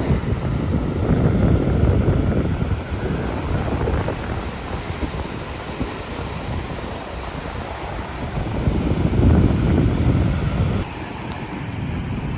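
Ocean surf breaking and washing on a sandy beach, with wind rumbling on the microphone. The rush of the waves swells loudest about a second in and again near the end.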